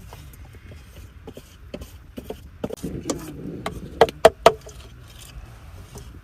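Scattered clicks and knocks of objects being handled, then three loud, sharp knocks in quick succession about four seconds in.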